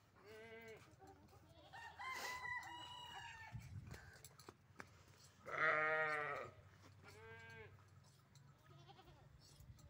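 A goat bleating several times in short calls, the loudest about halfway through, and a rooster crowing once about two seconds in.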